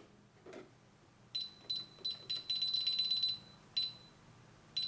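DSC fire alarm keypad beeping as a code is keyed in to arm or disarm the system: four single high beeps about a third of a second apart, then a quick run of rapid beeps, then one more beep near the end.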